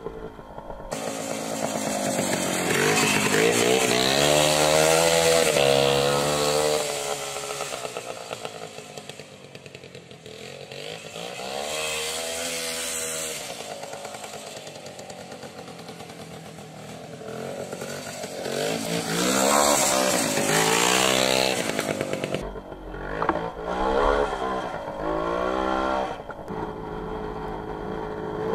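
WSK 125 motorcycle's single-cylinder two-stroke engine being ridden hard on a dirt track, revving up and falling back again and again. It is loudest about four to six seconds in and again about twenty seconds in.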